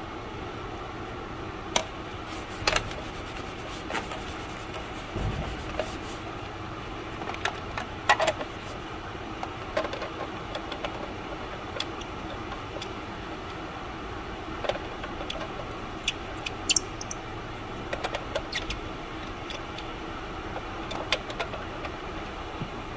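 Scattered light clicks and knocks of parts being handled and fitted on a Honda CR-V's valve cover, over a steady background hum.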